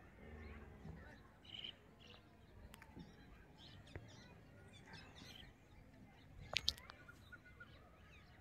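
Faint background of small birds chirping now and then, with two sharp clicks close together about two-thirds of the way through.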